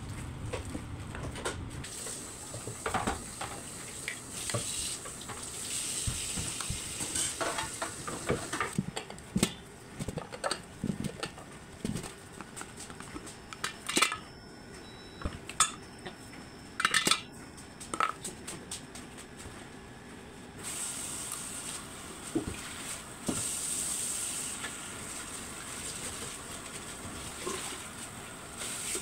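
A spatula stirring and scraping a shredded chicken filling around a stainless steel mixing bowl, with a string of sharp clinks and knocks of utensils against the bowl and counter through the middle.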